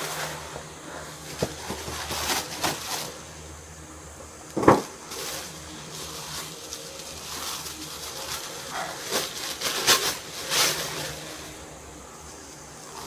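Rustling and crinkling of a paper shopping bag and a thin plastic bag as a shirt is lifted out and unwrapped, with one sharp thump about five seconds in.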